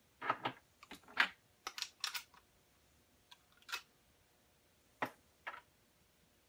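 Short, irregular clicks and clinks of brass .308 rifle cases being handled at a plastic loading block and primed in a Lee Auto-Prime hand priming tool.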